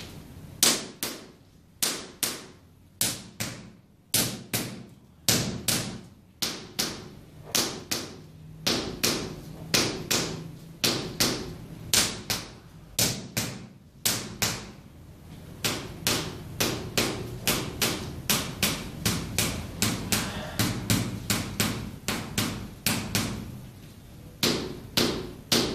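A hand-held massage mallet striking a bare heel over and over, sharp knocks about one to two a second, coming faster in the second half, with a brief pause near the end.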